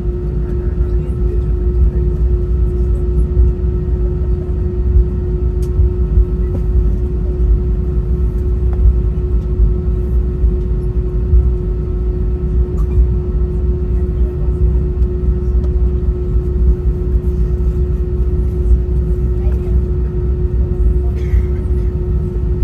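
Airbus A320 cabin noise: a steady, loud low rumble from the aircraft's engines and airflow, with a constant hum riding on top, unchanging throughout.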